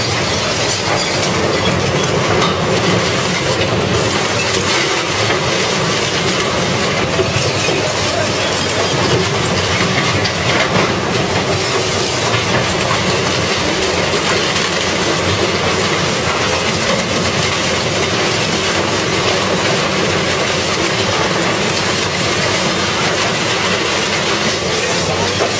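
Industrial metal shredder grinding up car parts: a loud, continuous clanking and crunching of metal being torn apart.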